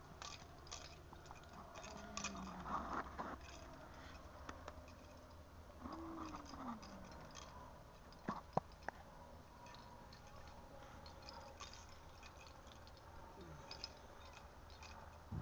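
Mostly quiet, with faint scattered clicks and taps, as of a plastic toy ball being handled, and two sharper clicks about eight and a half seconds in. A couple of brief, soft vocal sounds fall in pitch, one about two seconds in and one about six seconds in.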